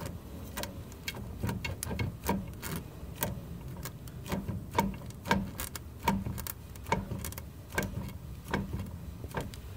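Driveshaft Shop 9-inch rear end and carbon fiber driveshaft clicking as the driveshaft is rocked back and forth by hand, a run of sharp clicks about two to three a second, often in pairs. The clicks come from play in the driveline taking up before the rear gears catch, which the owner takes for the noise he hears when launching.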